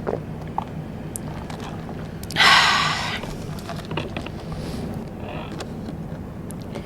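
Close-miked eating sounds: small mouth clicks and smacks, and one loud crunchy bite of rice-paper snack about two and a half seconds in that lasts under a second.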